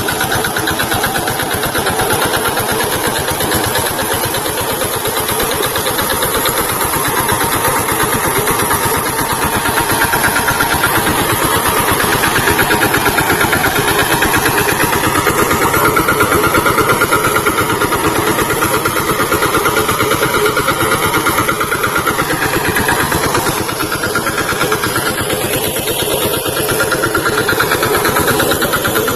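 VST Shakti tractor's diesel engine running steadily and loudly, its note rising and falling slightly partway through.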